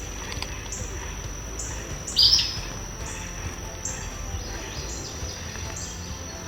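A wild bird gives a single short, sharp call about two seconds in. Under it runs a steady high-pitched insect drone that swells roughly once a second, over low outdoor background noise.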